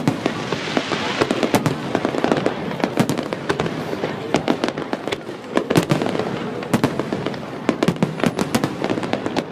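Fireworks going off: a dense, irregular run of sharp bangs and pops over continuous crackling.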